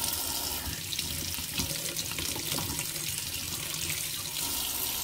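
Kitchen faucet running steadily, its stream splashing into a stainless steel sink and over a ceramic filter pod held under it to rinse the pod.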